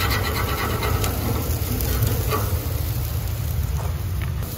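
Steady low rumble of wind buffeting a handheld microphone, with a faint hiss over it.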